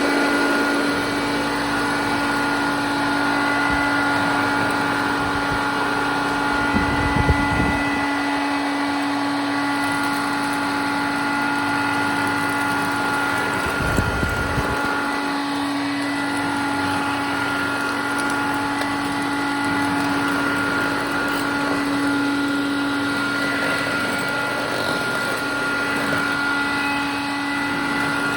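Hoover Dial-A-Matic 1136 clean-air upright vacuum cleaner running on high suction: a steady motor hum with a whine above it, which the owner thinks needs re-greasing. There are two short low rumbles, about 7 and 14 seconds in.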